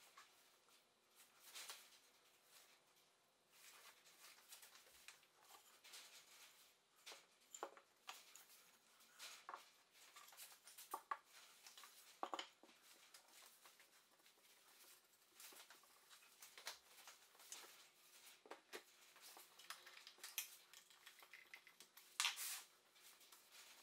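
Quiet, scattered handling sounds: light knocks and scrapes as softwood battens are set down and fitted onto an MDF panel, the clearest about twelve seconds in and near the end.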